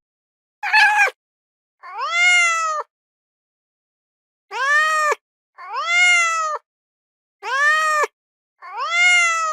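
Domestic cat meowing six times, each a drawn-out meow rising then falling in pitch, the first one short and rough.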